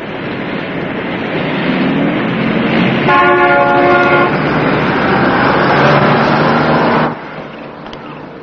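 Heavy street traffic noise swelling as vehicles pass, with a vehicle horn blaring for about a second around three seconds in. The traffic noise cuts off suddenly near the end.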